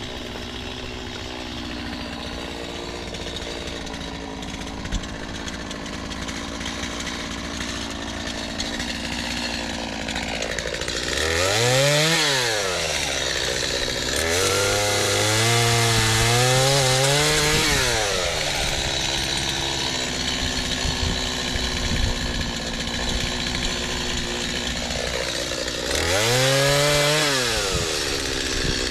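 Gas chainsaw idling, then revved up and down and held at high revs for a few seconds while cutting crepe myrtle wood, with the pitch wavering under load. It drops back to idle and revs up again near the end.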